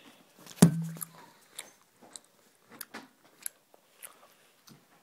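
Handling noise from a phone rubbing against a hand and clothing: one loud bump about half a second in, then scattered light clicks and rustles.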